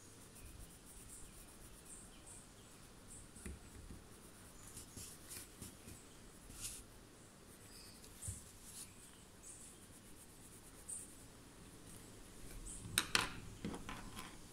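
Faint scratching of a watercolour pencil shading on a paper tile in short strokes. A brief louder clatter comes about 13 seconds in, as pencils are handled.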